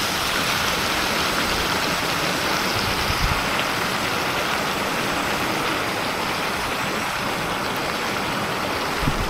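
Portable stove burner running with a steady hiss under a wok of stir-fry, with a few soft knocks about three seconds in and near the end.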